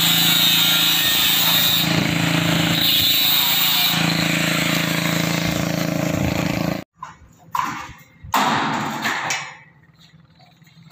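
Angle grinder cutting a corrugated Tufdeck steel deck sheet: a loud, steady whining grind that stops abruptly about seven seconds in. After it come a few short knocks and rattles.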